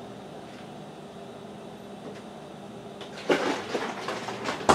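Kitchen items being handled: a few quick clattering knocks starting about three seconds in, the loudest and sharpest one at the very end, over a steady faint hum.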